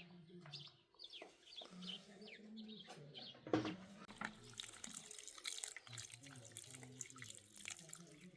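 Small birds chirping in short, falling notes for the first few seconds. Then a knock, and water starts running and splashing steadily, like a tap running into a basin.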